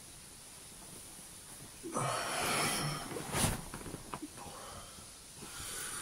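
A man waking up takes a loud, heavy breath about two seconds in, then comes a sharp click, and a softer breath near the end.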